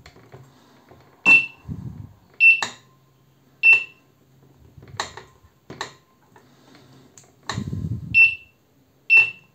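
AquaReef Pro2 LED aquarium light's keypad being pressed: a click and a short high beep at each press, about five irregular presses, as the LEDs switch between modes. The beeps show the repaired keys are registering. A few extra clicks and a low handling rumble come near the end.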